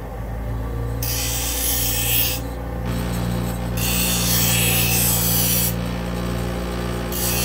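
Small bench grinder's motor running with a steady hum while a knife blade is pressed against the spinning grinding wheel to sharpen it: a harsh, hissing grind in three passes, about a second in, from about three to six seconds, and again near the end.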